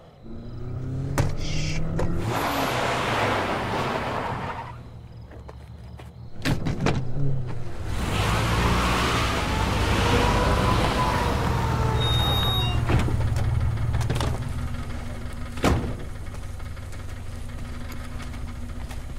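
A car on a road, its engine and tyres swelling up and dying away, then a second, longer pass. It then settles to a steady idle near the end, with one sharp knock.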